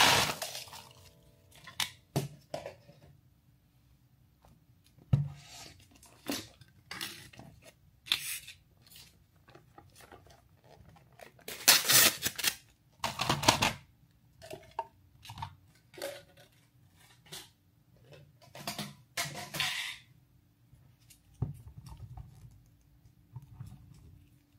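Packaging being torn and handled by hand: intermittent rustles, tears and light knocks with quiet gaps between them, along with occasional clinks of dishes or utensils.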